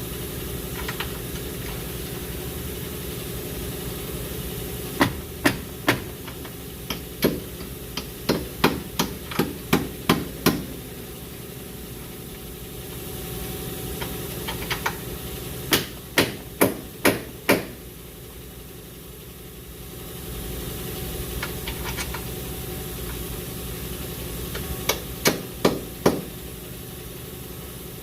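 Hammer tapping the front lower control arm into its mount to line up the bolt hole: sharp metal strikes in four bunches of about three to eight quick blows, with pauses between, over a steady low hum.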